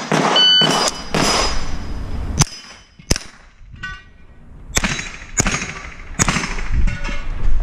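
A string of roughly eight rifle shots from a .22 rimfire mini rifle, fired at uneven intervals, with steel targets ringing briefly after some of the hits.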